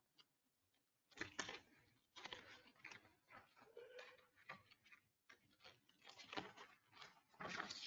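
Faint rustling and handling of paper sheets in a quiet room, coming in several brief bursts with near silence between them.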